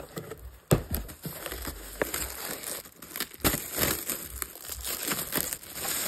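Plastic packaging crinkling and rustling as a clear plastic bag is pulled off an acrylic stand, with a sharp knock about a second in.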